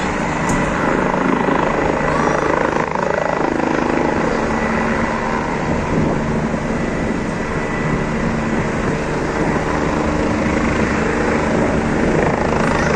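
Helicopter lifting off and climbing away, its rotor and turbine running loud and steady with a low humming drone.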